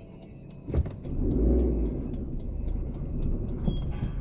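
A thump, then the low rumble of a car running, with light even ticking throughout.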